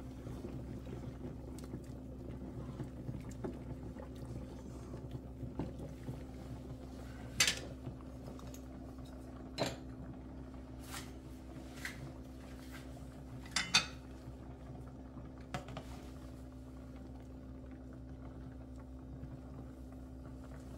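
A pot of seasoned water coming to the boil on the stove, with a steady low hum and about half a dozen sharp clinks of metal utensils against the pot in the middle stretch.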